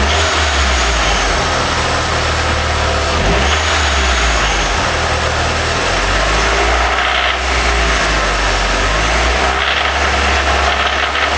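Nissan CA18DET 1.8-litre turbo four-cylinder engine running with a connecting-rod bearing knock, its revs shifting a few times. The knock comes from standard-size rod bearings fitted to a reground crankshaft, which leaves too much bearing clearance.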